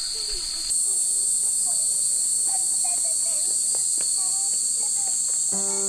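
A steady, high-pitched chorus of summer cicadas that shifts in tone about a second in, with faint distant voices underneath. Soft piano music comes in near the end.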